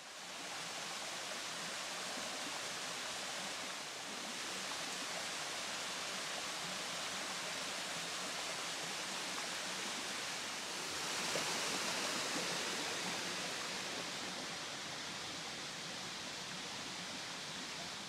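Nelson Falls, a tiered rainforest waterfall, rushing steadily as it spills down a rock face, a little louder about two-thirds of the way through.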